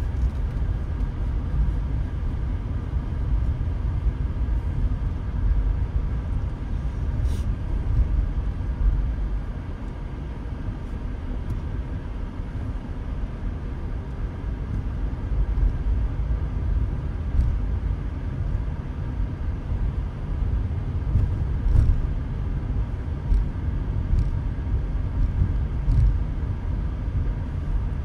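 A car driving along a road: a steady low rumble of engine and tyres, with a few faint clicks.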